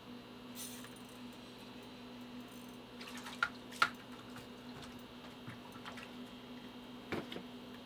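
Quiet small-room tone with a steady low hum, broken by a few sharp clicks and taps of fishing tackle being handled, the loudest a little under four seconds in.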